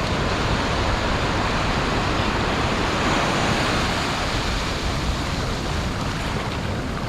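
Ocean surf washing on the shore: a steady rush of breaking water that swells a little about halfway through.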